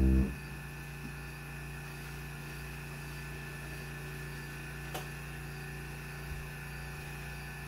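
An electric keyboard's last chord cuts off just after the start, leaving a steady low hum with a hiss behind it. A faint click comes about five seconds in.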